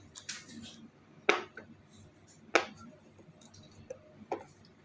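Fidget toys clicking and snapping in short, sharp clicks. Three loud ones come roughly a second or more apart, with a few fainter clicks between them.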